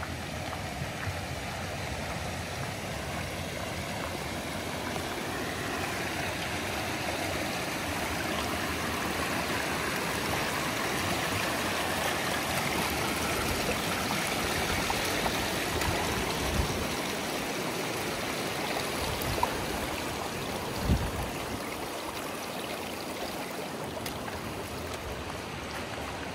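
Shallow mountain stream rushing steadily over rocks and stones. A couple of dull thumps come about three quarters of the way in.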